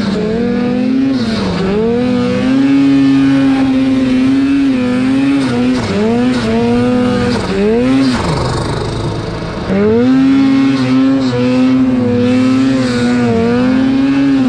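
Turbocharged Arctic Cat Mountain Cat 800 snowmobile's two-stroke twin engine working under throttle in deep powder, its pitch rising and falling over and over as the revs change. It drops off sharply about eight seconds in, then revs back up just before ten seconds.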